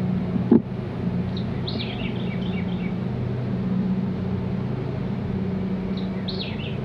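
A steady low hum, with a single sharp knock about half a second in and a songbird singing short chirping phrases twice, the second near the end.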